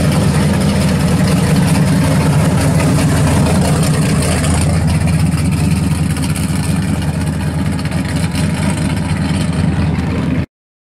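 First-generation Chevrolet Camaro SS's V8 exhaust rumbling steadily as the car rolls by at low speed. The sound cuts off suddenly just before the end.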